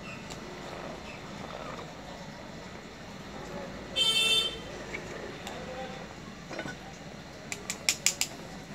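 A vehicle horn honks once, briefly, about four seconds in, over a steady low background hum. Near the end comes a quick run of sharp metallic clicks as small gas-stove valve parts are handled.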